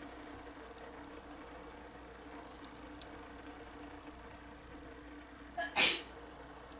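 A faint steady hum, with a couple of light clicks near the middle and one short scrape or rustle about six seconds in: small handling sounds.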